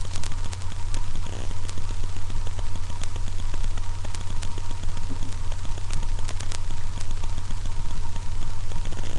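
Steady low electrical hum with a thin high-pitched whine from a webcam microphone, with faint scattered clicks throughout.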